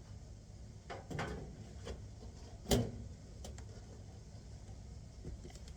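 A few short knocks and clicks of handling, the sharpest and loudest about two and a half seconds in, over a low steady hum.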